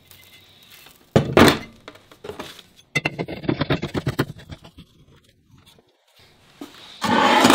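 A cast-iron brake rotor set down on a workbench with a heavy thunk about a second in, then a quick run of metal clicks and scrapes as a steel pipe is screwed into the threaded pipe mount bolted to the rotor. A louder scraping noise comes near the end.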